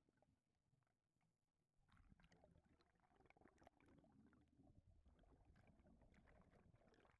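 Very faint, muffled underwater sound of scuba exhaust bubbles streaming past the camera housing: a low rumble with scattered crackling, busier from about two seconds in.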